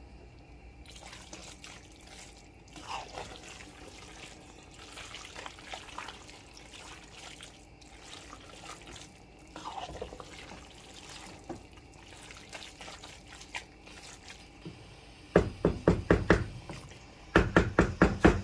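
Thick, sticky cheese-sauced fettuccine being stirred in a nonstick pan with a spoon: soft wet squelching and slapping of noodles and sauce. Near the end come two quick runs of sharp knocks.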